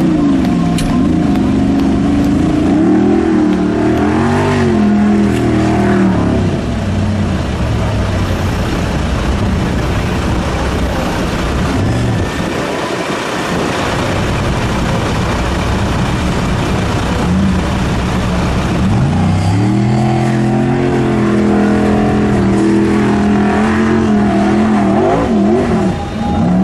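V8 engine of a Formula Offroad hillclimb car revving hard, its pitch surging up and down again and again as the throttle is worked. In the middle there is a long stretch of dense rushing noise without a clear engine note.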